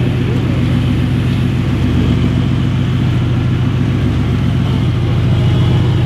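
Mercedes-AMG GT R's twin-turbo V8 idling steadily through an aftermarket Fi exhaust as the car creeps forward at walking pace: a deep, even exhaust note with no revs.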